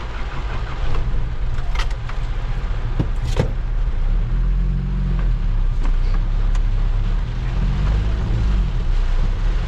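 Truck engine running, heard from inside the cab, with heavy rain falling on the vehicle and a few sharp clicks or knocks about two and three seconds in.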